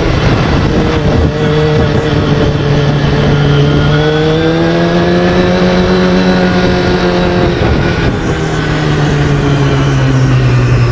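Yamaha R6's inline-four engine running under way, its note climbing gently for several seconds, then dropping about eight seconds in and settling lower. Wind rushes over the onboard microphone throughout.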